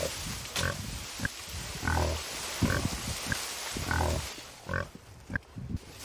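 A pig grunting repeatedly: about eight short, low grunts, one every second or less, fading near the end.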